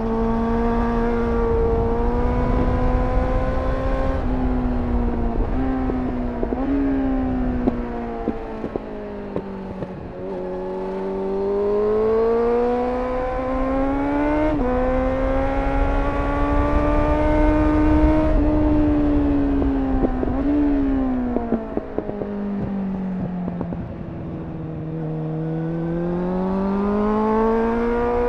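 2001 Suzuki GSF 600 Bandit's inline-four engine through a GPR Furore Nero aftermarket exhaust, heard onboard while riding. Its pitch climbs with each gear and dips quickly at the upshifts, then falls away as the throttle closes, with pops and crackles on the overrun, several times over. Wind rumbles on the microphone underneath.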